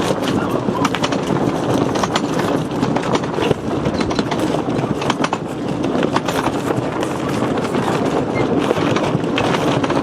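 Strong wind blasting over the microphone aboard a small sailing yacht: a loud, steady rush with many short crackles and rattles all through it.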